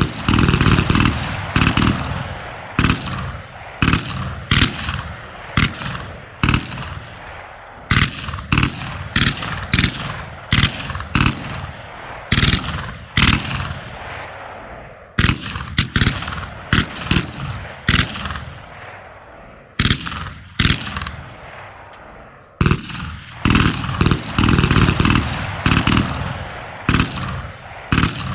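Machine gun firing in rapid bursts, with more scattered shots between them. Each shot echoes away.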